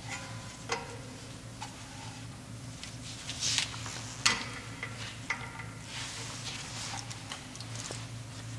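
Small ratchet with a T30 Torx bit clicking on a seized brake disc retaining screw, with metal clinks against the disc. The clicks are irregular and sharp, a few with a brief metallic ring, the loudest about four seconds in, over a steady low hum.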